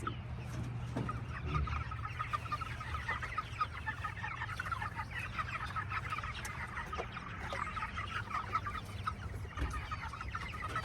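A flock of young meat chickens clucking and peeping together in a dense, unbroken chatter: hungry birds waiting for their feed.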